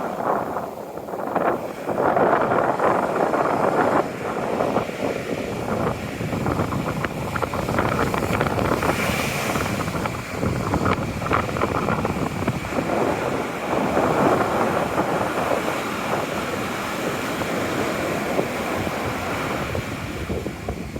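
Wind buffeting the microphone over the rush of waves at the seashore, a loud rushing noise that swells and eases.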